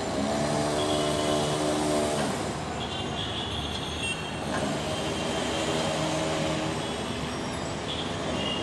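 City road traffic heard from high above: a steady rumble of engines and tyres. A held pitched tone sounds over it twice, once in the first two seconds and again about five to seven seconds in.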